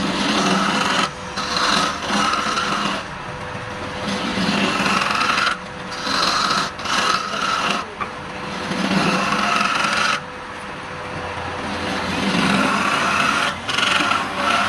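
Wood lathe running with a steady hum while a tool scrapes the spinning palm-wood bowl in repeated passes of a second or two each.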